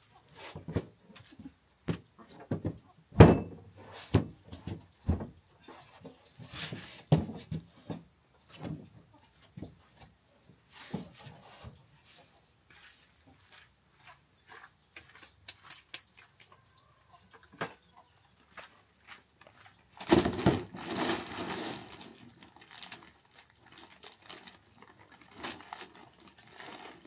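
Scattered knocks, taps and rubbing from a cut plastic barrel being pressed and shifted on a welded metal frame and tools being set down on it, with a longer stretch of rustling clatter about twenty seconds in.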